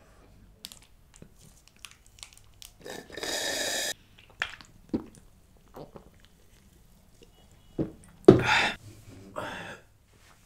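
Mouth sounds of a person drinking from a soda can close to a microphone: scattered soft clicks and swallows, a breathy sound lasting about a second about three seconds in, and a loud sudden breath a little after eight seconds in.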